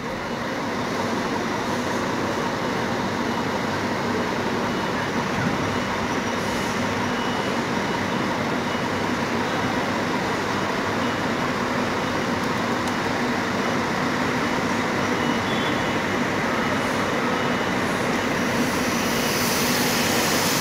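Steady diesel running of a double-decker long-distance coach moving slowly across a wet bus-terminal lot, with a constant low hum under a wide noise, and a hiss that grows near the end.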